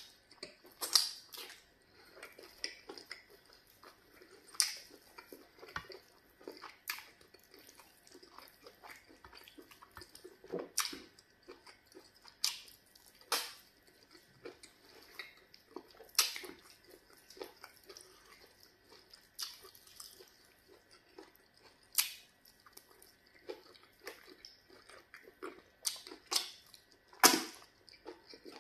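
Eating pounded yam fufu and vegetable soup with fish by hand: wet mouth smacks, lip clicks and chewing, coming irregularly every second or two.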